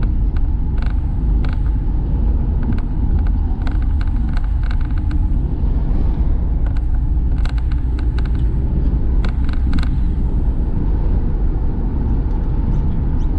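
Car driving, heard from inside the cabin: a steady low rumble of road and engine noise, with scattered light clicks and rattles.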